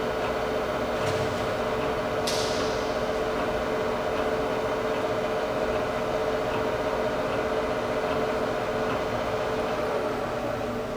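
Lehigh gap-bed engine lathe running under power with its cross slide on power feed: a steady geared hum with a constant whine. A sharp click about two seconds in, and the sound eases off near the end.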